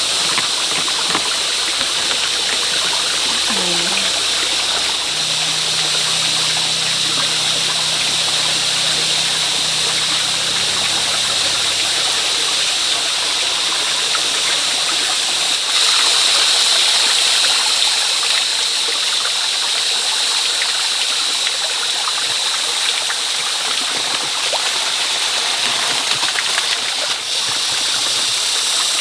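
Water rushing steadily, a loud continuous hiss that swells a little about halfway through.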